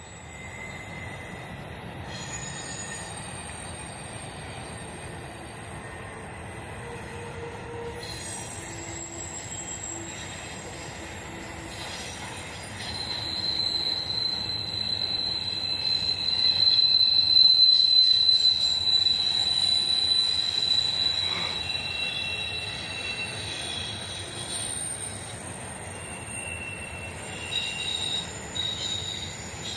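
Intermodal freight train rolling past with a steady rumble of wheels on rail, and its wheels squealing in a long high, steady tone. The squeal swells about halfway through and fades away a few seconds later.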